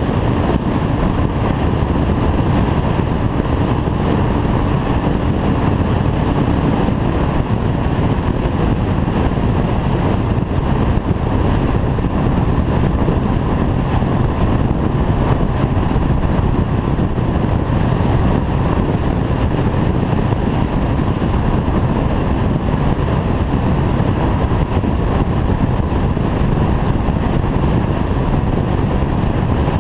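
Motorcycle cruising at a steady speed. Wind rushes over the microphone above the steady drone of the engine.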